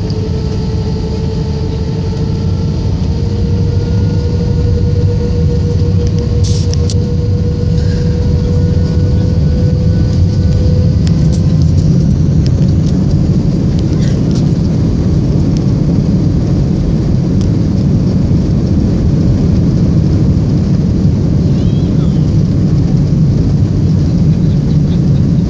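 Airbus A321-200 cabin noise while taxiing: a steady low rumble of the jet engines and airframe, with a faint tone that slowly rises in pitch over the first ten seconds and then fades.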